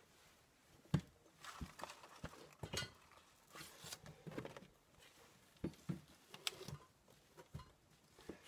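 Soft, scattered knocks and light rustling as things are handled and set down on a worktable.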